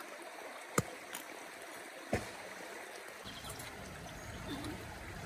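Stream water running steadily, with two sharp knocks, one about a second in and one just after two seconds; a low rumble comes in after about three seconds.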